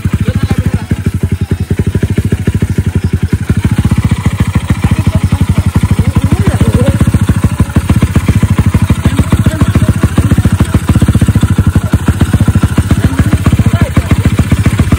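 Small motorcycle engine running loud and steady with rapid, evenly spaced exhaust pulses while it is being tuned.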